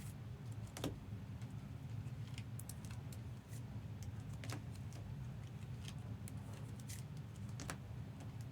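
Scattered light clicks and rustles of trading cards being slid into plastic sleeves and cases, over a steady low hum.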